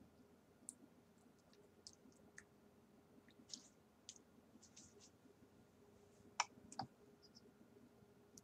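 Near silence with scattered faint clicks, and two sharper clicks close together about six and a half seconds in.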